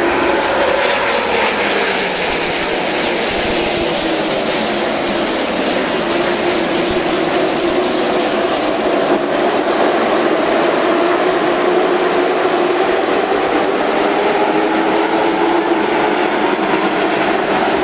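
A field of stock cars' V8 engines racing past on a short oval track, a loud continuous engine roar with pitches that drift up and down as cars pass.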